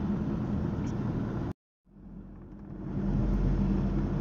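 Steady low road and engine rumble of a vehicle travelling on an elevated expressway. It cuts out abruptly to silence about a second and a half in, then fades back up over the next second.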